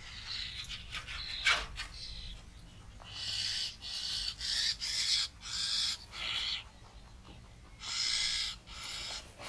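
Short bursts of rustling and brushing right at the microphone as French lop rabbit kits move through the long grass beside it, coming about once a second from about three seconds in. A single sharp tap about one and a half seconds in.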